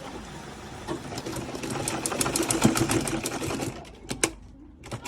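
Sewing machine stitching a plastic zipper into a blouse. It picks up speed about a second in, runs fast with a rapid clatter of needle strokes for a couple of seconds, then stops, followed by a single click.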